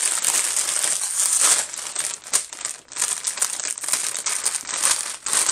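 Clear plastic Lego parts bag crinkling as it is handled and pulled open, a dense, continuous crackle.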